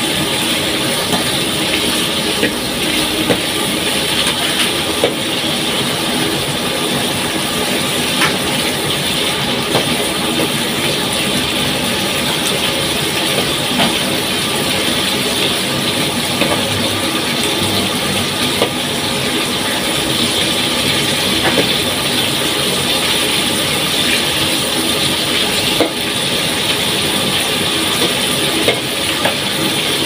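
Shrimp frying in oil in a metal wok: a steady sizzling hiss, with occasional light clicks of a metal spatula against the wok as they are stirred.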